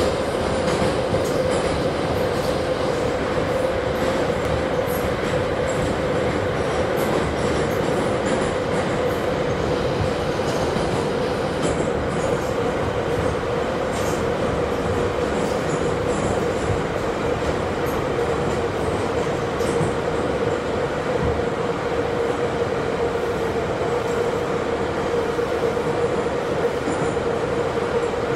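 Vintage metro train car in motion, heard from inside the car: a steady rumble of the wheels and running gear with a constant mid-pitched whine and a few faint ticks.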